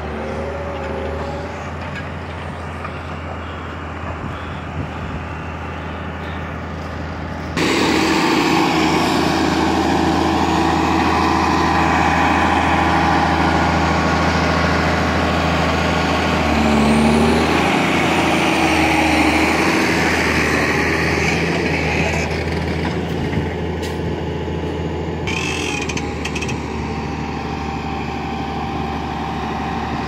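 New Holland T8030 tractor's diesel engine running steadily under load while pulling a plough, a low drone that jumps suddenly louder about eight seconds in.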